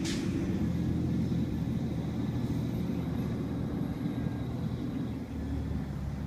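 Steady low rumble of a vehicle engine running, with a short hiss right at the start.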